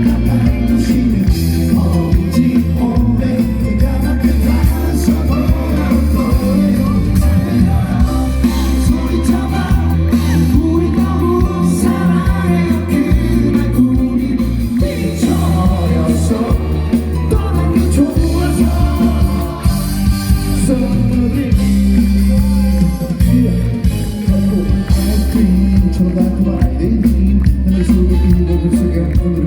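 Live amplified pop-rock song: a male singer over a full band with heavy bass.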